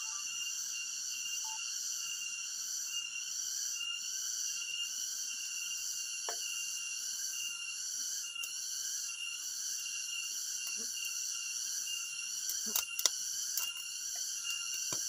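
A steady, shrill insect drone with a faint pulse, with a few light knocks and clicks, the loudest about thirteen seconds in.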